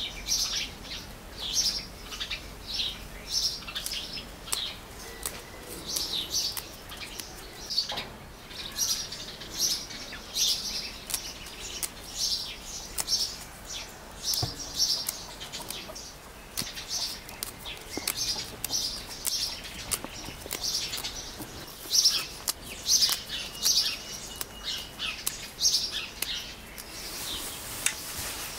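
Songbirds chirping, with short high calls repeating several times a second. A steady hiss comes in near the end.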